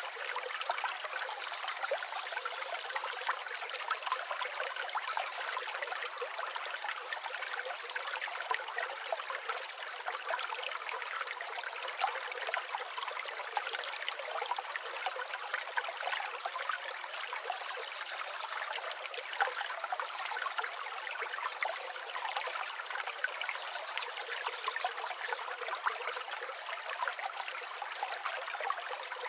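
River water flowing in a steady, even trickling rush, with no low rumble.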